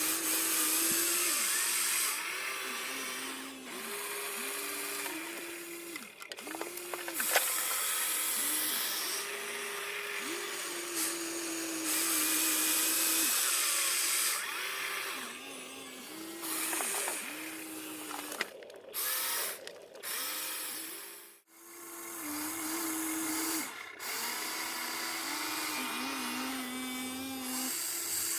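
Small electric motors of radio-controlled excavators and trucks whining as they work, the pitch stepping up and down and cutting in and out as the machines start, stop and change movement, over a steady grinding noise.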